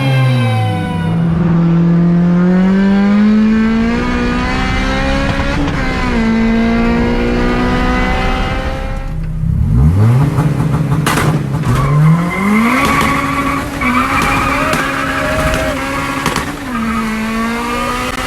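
Car engine revving: the pitch climbs and falls back several times, then holds steady. Around nine seconds in it breaks off briefly and the pitch drops sharply before climbing again. A high steady whine joins over the later part.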